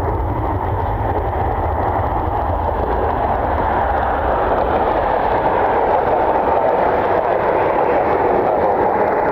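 Jet aircraft engines roaring steadily, mixed with a deep rumble of wind on the microphone.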